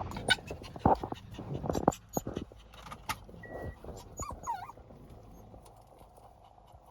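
A small pet animal's whimpering cries among short clicks and knocks, with a wavering, squeaky cry about four and a half seconds in.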